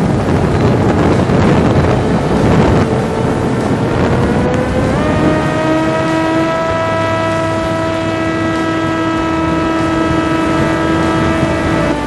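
Volantex Ranger 757-3 RC plane's 3715 brushless outrunner motor and 1060 propeller droning in flight, with heavy wind rush on the onboard microphone. The motor's pitch creeps up, steps up sharply about five seconds in, and then holds steady as the wind noise eases.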